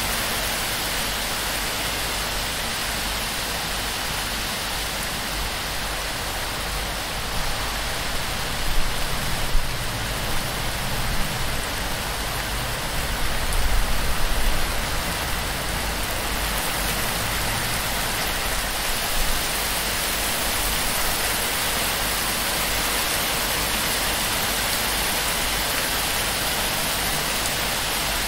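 Heavy torrential rain pouring onto and off a palm-thatch roof in a steady, dense hiss. There are a few brief louder low thumps about a third to halfway through.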